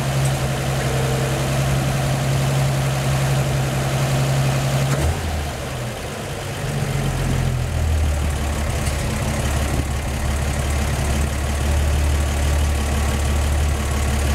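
1949 Chevrolet 3100 pickup's 216 inline-six engine idling steadily. About five seconds in, the fast idle finally kicks down and the engine settles to a lower, slower idle.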